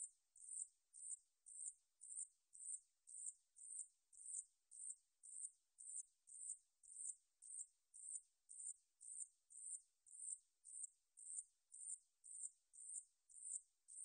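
A 산여치 bush cricket (katydid) singing: a faint, steady series of short, high-pitched chirps, about two a second, each starting sharply and fading quickly.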